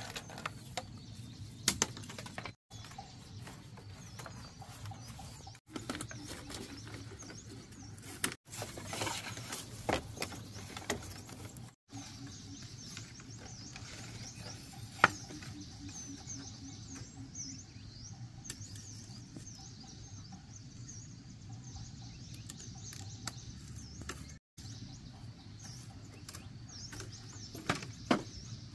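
Thin bamboo strips rustling and clicking against the spokes as a bamboo fish-trap basket is woven by hand, with a few sharp snaps, one loudest about halfway through. Birds chirp in the background.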